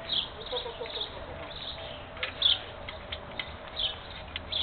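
Birds chirping in short, scattered calls, with a few sharp metallic clicks from a wrench as the engine's manifold bolts are tightened.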